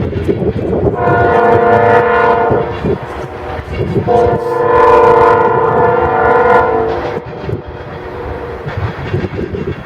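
Locomotive air horn sounding two long blasts, each a chord of several notes, over the rumble of a moving train. The second blast is the louder and longer.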